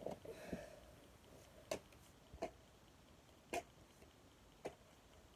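Trading cards being handled and dropped into a bin: four faint, sharp clicks about a second apart.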